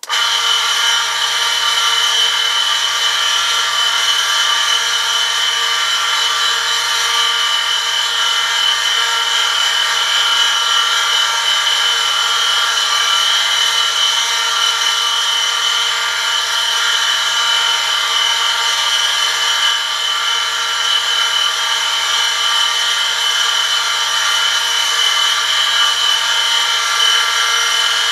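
Oil film-strength friction tester running: an electric motor spins a steel part against a steel sample pressed by a lever loaded with 1 kg, the contact lubricated with 5W-30 engine oil at 100 °C. It starts abruptly and runs steadily as a loud, high-pitched metal-on-metal screech over the motor's hum.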